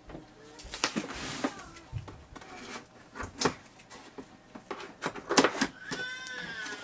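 Scissors cutting through packing tape on a cardboard box: scattered snips and scrapes with short bursts of hiss, and a brief squeak near the end.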